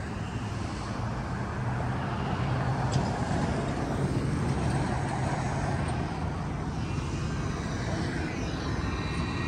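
Steady engine noise with a low hum, growing a little louder about two seconds in.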